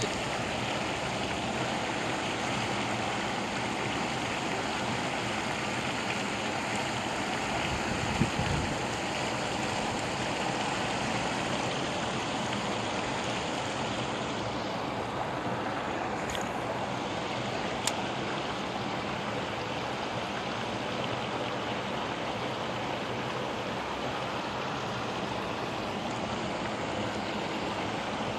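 Steady rush of water pouring over a concrete spillway dam. A brief low thump comes about eight seconds in, and a single sharp click about two-thirds of the way through.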